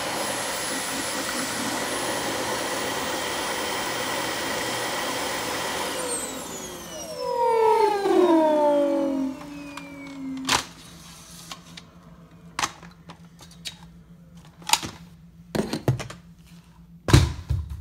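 Vacuum cleaner motor running with a steady high whine, then switched off about six seconds in and winding down with a falling pitch, louder for a moment partway through the spin-down. A few scattered knocks and clicks of handling follow.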